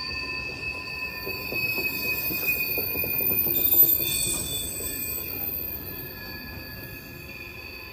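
Freight cars (tank cars and covered hoppers) rolling past, their wheels rumbling and clattering on the rail, with steady high-pitched squeal tones over the top. The rumble fades over the last few seconds as the end of the train passes.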